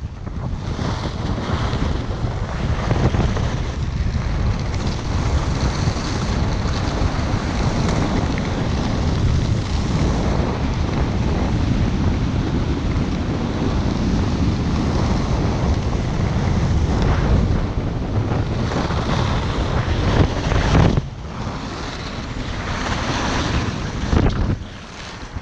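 Wind rushing over a body-worn camera's microphone during a downhill ski run, with the skis sliding on packed snow. The rush drops back twice in the last few seconds.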